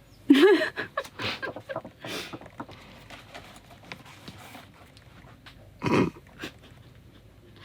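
A woman crying: a short whimpering sob at the start, then shaky breaths and sniffs, with a louder sob near the end.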